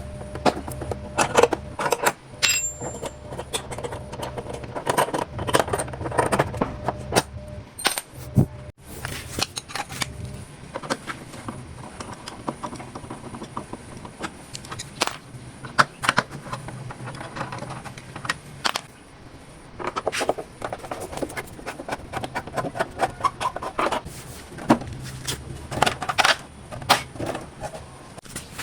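Irregular metallic clicks, clinks and light knocks of hand tools and small metal parts being handled during work on a motorcycle starter motor, over a low steady hum.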